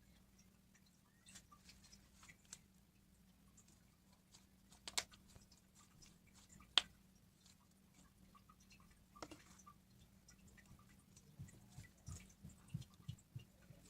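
Faint clicks and soft squelches of slime being handled and pressed, with two sharper pops about five and seven seconds in and a few soft low thuds near the end, over a steady low hum.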